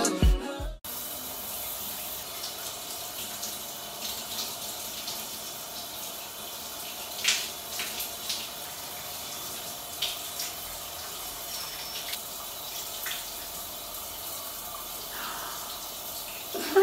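Music cuts off about a second in. Then a shower runs steadily with an even hiss, with a few light knocks and taps as hair is washed.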